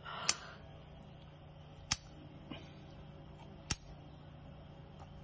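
Kitchen scissors snipping through the rubbery siphon of a blanched geoduck: three sharp clicks, about one and a half to two seconds apart.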